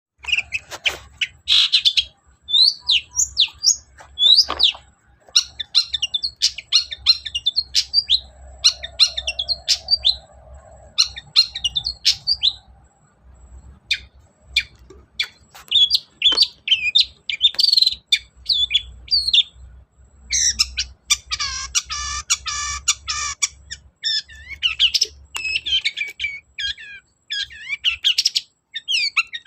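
Long-tailed shrike (cendet) singing a fast, varied song of quick chirps, whistles and clicks, packed with mimicked calls of other birds. A harsh, scratchy chatter comes about two-thirds of the way through.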